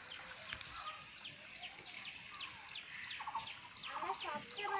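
Bird calls: a short, high, falling peep repeated steadily about three times a second. Lower calls from fowl join in during the last second and a half.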